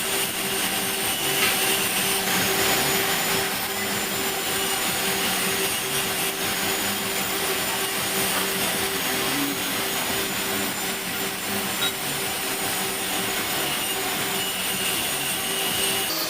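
Metal lathe running steadily: a constant hum under a steady hiss.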